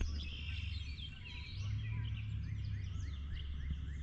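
Birds chirping and calling with many short, quick notes, over a steady low rumble heard through a GoPro sealed in a waterproof case.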